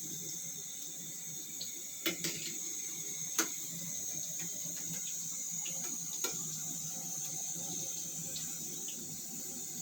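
Yam fries sizzling steadily in hot frying oil, with a few sharp clicks of a utensil about two, three and six seconds in as the fries are lifted out.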